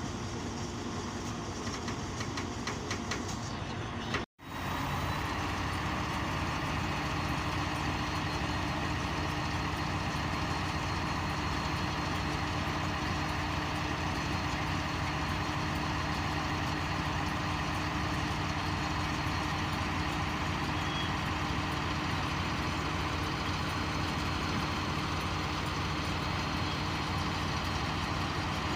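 Heavy diesel engine running steadily, cutting out for an instant about four seconds in.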